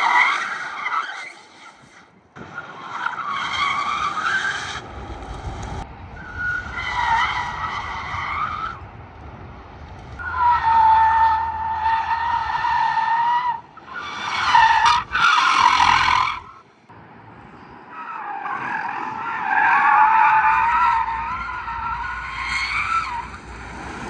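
Rimac Nevera's tyres squealing as it drifts, in about six separate squeals of two to five seconds each, on fresh tyres fitted for drifting.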